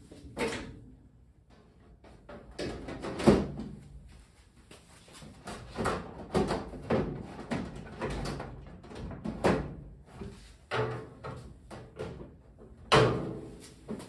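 Stainless-steel outer cover of a Sharp Carousel microwave being lowered and slid back onto its chassis: a string of sheet-metal clunks, scrapes and rattles, the sharpest about three seconds in and another near the end.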